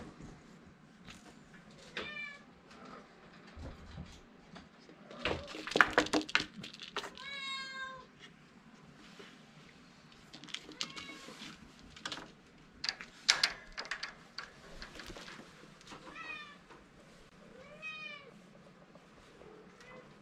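Kittens meowing several times with short, high-pitched calls, among scattered knocks and rattles. The loudest knocks come about six seconds in and again around thirteen seconds.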